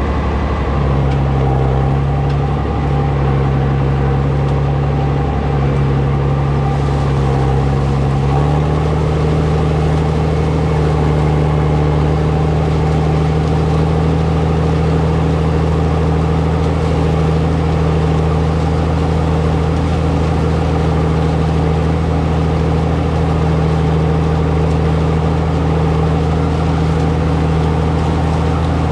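Farmall 560 diesel tractor's six-cylinder engine running steadily under load while pulling a disk through corn stalks. About eight seconds in, its note shifts up slightly and then holds.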